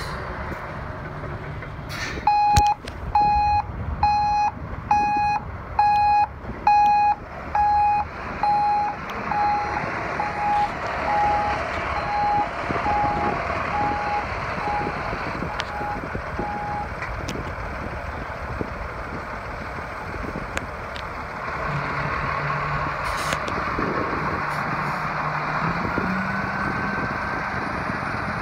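Backup alarm on a Freightliner M2 106 dump truck, beeping evenly at one pitch as the truck reverses; the beeps fade away over several seconds. Under it the diesel engine runs, and in the last several seconds its note rises as the hydraulic hoist lifts the dump bed.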